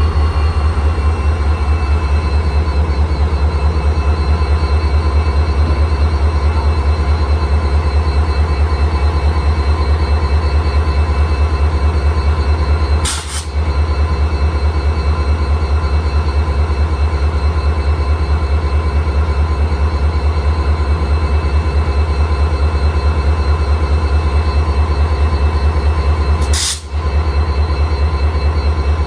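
A WDP-4 (EMD GT46PAC) locomotive's 16-cylinder 710G3B turbocharged diesel engine running steadily. It gives a deep, fast low throb under a steady high whine, the jet-turbine-like hum this engine is known for. The sound dips briefly twice.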